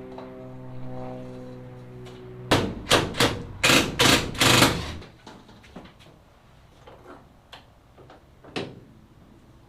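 Sustained background music ends about two and a half seconds in. A quick run of about seven loud knocks follows over the next two and a half seconds, then scattered lighter clicks and taps.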